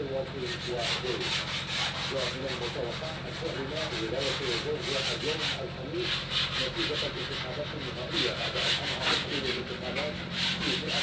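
Hand sanding of a wooden cupboard-door panel: sandpaper rubbing across the wood in repeated back-and-forth strokes.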